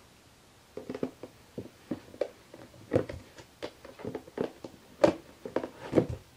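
Clear plastic storage cases knocking and scraping as a cat paws at them and pushes its head inside: a string of irregular taps, the loudest about three, five and six seconds in.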